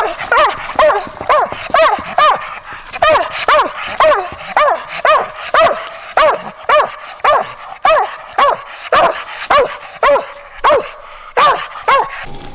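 A hunting dog barking steadily at a tree, about two short rising-and-falling barks a second with a couple of brief breaks: the tree bark of a dog that has treed a squirrel.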